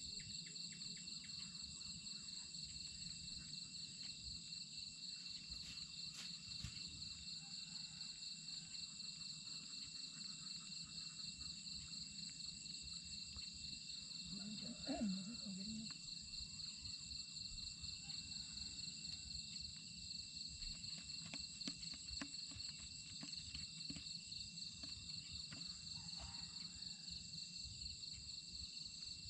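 Steady insect chorus, crickets among them: several high, unbroken trills at different pitches, one of them finely pulsing, with a short low call about halfway through.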